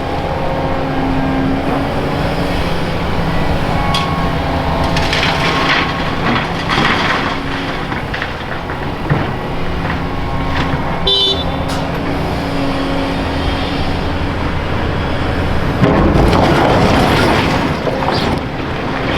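Volvo EC480EHR excavator's diesel engine and hydraulics working steadily while loading crushed concrete into a dump truck, with a brief high-pitched tone about halfway and a loud rattling rush of rubble near the end.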